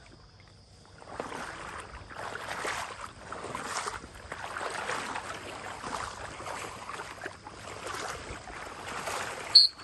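Splashing and swishing through shallow marsh water and wet grass, coming in irregular surges about once a second, over a faint steady high insect buzz. Near the end there is a single sudden, very short, loud high pip.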